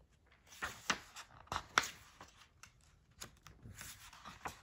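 Paper pages of a picture book rustling as a page is turned by hand: a handful of short, soft scrapes and flicks.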